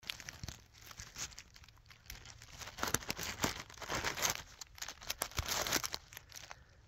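Irregular close rustling and crackling with scattered clicks: handling noise from the phone being moved about and rubbed near the microphone.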